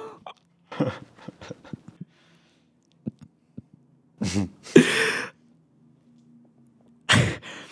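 A man laughing hard: breathy laughter in three bursts, the loudest about four to five seconds in.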